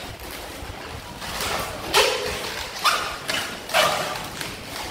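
Latex modelling balloons rubbing and squeaking as they are twisted and bent by hand, with several sharp squeaks between about two and four seconds in.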